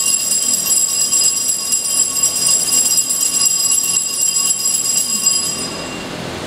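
Altar bells (Sanctus bells) shaken in a continuous rapid jingle, a cluster of high ringing tones, marking the elevation of the chalice at the consecration. The ringing stops near the end.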